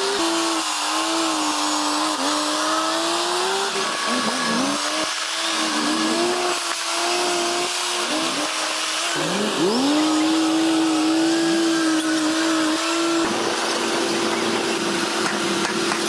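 Bulldozer engines running under load, their pitch repeatedly dipping and recovering, with one sharp rev-up about nine seconds in, settling into a steadier drone near the end, over a constant hiss.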